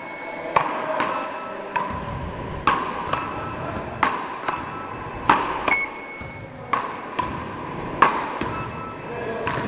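Beach paddle ball (ρακέτες) rally: solid paddles knock a small rubber ball back and forth at a steady pace. The sharp hits echo in a large hall, louder ones alternating with fainter ones.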